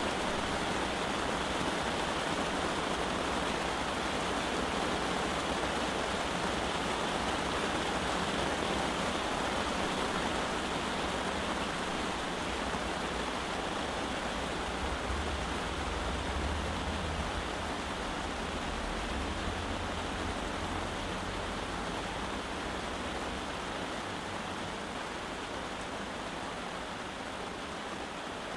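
Heavy rain pouring onto a canvas tent, heard from inside: a dense, steady drumming that eases slightly over the second half.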